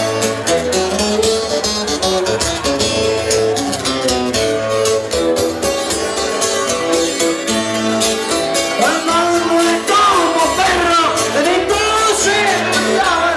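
Live band music played loud in a club, with a singer coming in on the microphone about nine seconds in.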